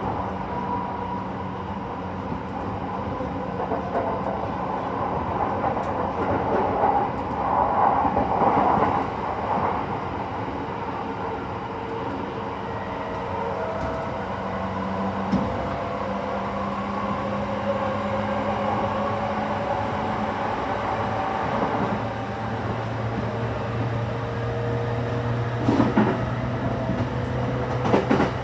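JR E231-series electric train running, heard from inside the passenger car: steady rumble of wheels on the rails with a motor whine that slowly rises in pitch in the second half, and a few sharp clacks near the end.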